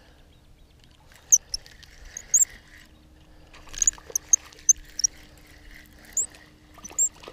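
Spinning reel squeaking in short, high chirps, about a dozen at uneven intervals, as the handle is cranked to bring in a hooked rainbow trout. The reel keeps squeaking even though it has been lubricated.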